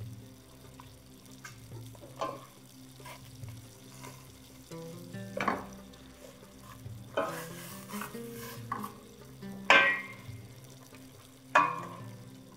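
Wooden spoon turning chicken pieces in a stainless steel pot of wet marinade: soft stirring and squelching, broken by about five sharp knocks of the spoon against the pot, the loudest two near the end.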